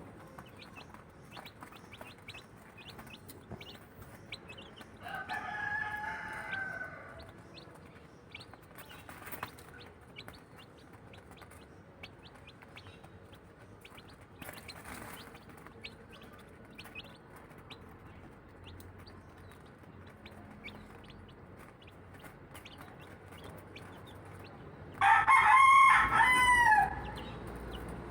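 Six-day-old Lemon 2.0 chicks peeping in short, quick chirps throughout, while an adult rooster crows twice: once about five seconds in and again, louder, near the end.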